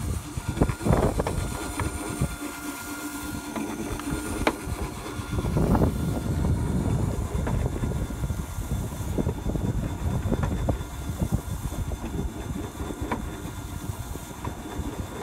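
Chubu PRO CHEF SU-20A electric meat slicer running, its circular blade slicing raw pork belly as the carriage is worked back and forth. A steady motor hum under low rumbling, with irregular clicks and knocks from the carriage and handling.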